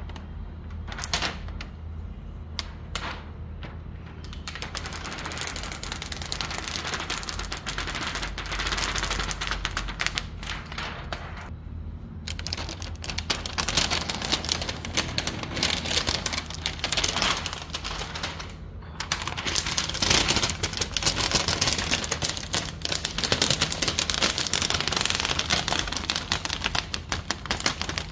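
Clear protective plastic film being peeled off a TV screen, crackling in dense rapid clicks as the adhesive lets go. The crackle is sparse at first, becomes denser and louder after about five seconds, and pauses briefly twice.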